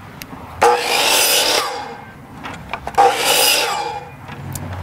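DeWalt miter saw cutting through a scrap wood board twice, each cut a loud hissing whine of about a second that trails off as the blade finishes.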